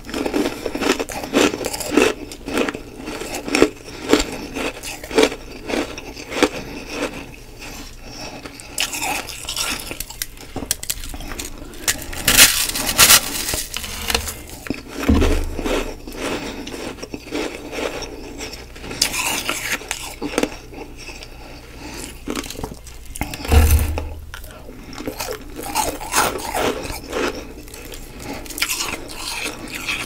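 Humidifier frost being bitten and chewed close to the microphone: a dense, steady run of crisp crunches with a few louder bites scattered through.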